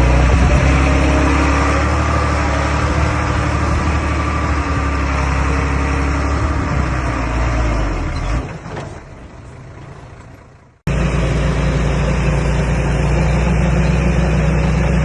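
Komatsu D21A bulldozer's diesel engine running under work. About eight seconds in the sound falls away, then cuts back in suddenly at full level a few seconds later.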